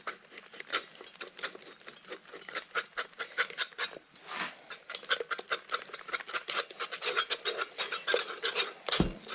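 Hand blender's whisk attachment worked by hand, beating eggs and sugar in a pot: a fast, steady run of scraping clicks as the wires strike and rub the pot.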